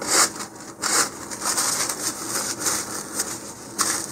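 Paper tissue rustling and crinkling in the hands as it wipes a cardboard rocket body tube, with sharper crinkles about a second in and near the end.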